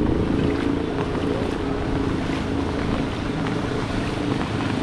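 Small motorcycle engine of a motorized tricycle running steadily as it drives through shallow floodwater, with water swishing around it.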